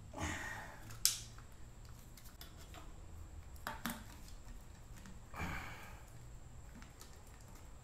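Threaded iron pipe fittings being screwed together by hand, a short close nipple turned into a tee. The threads scrape briefly twice, and there are a couple of sharp metal clicks, the first about a second in.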